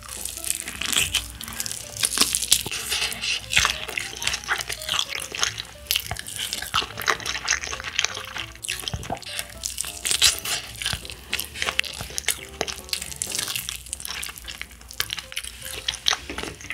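Crispy fried chicken (Burger King Bsakking) crunching as it is bitten and chewed close to the microphone, a dense, irregular crackle. Soft background music plays underneath.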